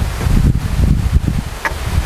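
Wind buffeting the microphone in a gusty low rumble, with tall grass rustling.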